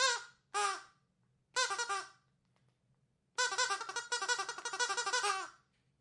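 Rubber duck squeak toy being squeezed: two short squeaks, a third a second later, then a run of quick squeaks lasting about two seconds.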